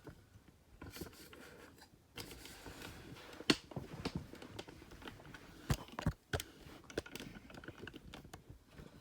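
Plastic K'nex rods and connectors clicking and rattling as they are handled, with the sharpest clicks about three and a half seconds in and around six seconds.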